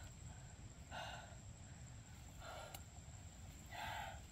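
A man breathing hard, faint, with a short breath about every second and a half.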